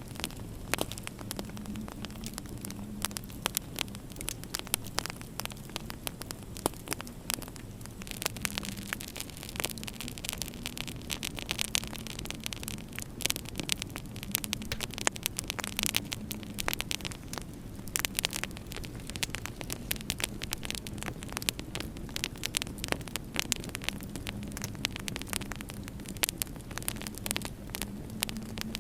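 Wood fire crackling, with frequent irregular sharp pops over a low, steady hum that swells and fades.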